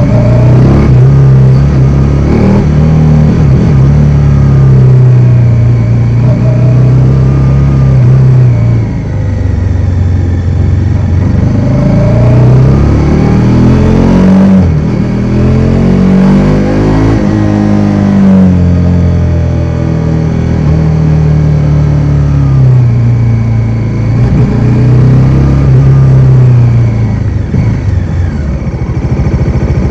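Bajaj Dominar 400's single-cylinder engine under way, its pitch rising through each acceleration and falling at each gear change, with a run of quick revs up and down about halfway through. Near the end it drops to a low, slow beat close to idle.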